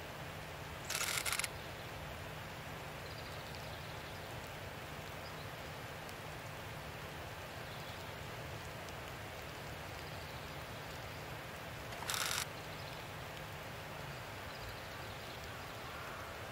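Faint outdoor ambience with a low steady hum, broken twice by a brief hiss, about a second in and again about twelve seconds in.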